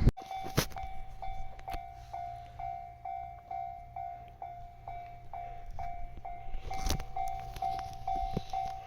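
Japanese railway level-crossing alarm ringing steadily, one electronic ding repeated about twice a second: the warning that a train is approaching and the crossing is closing. A couple of sharp knocks sound over it.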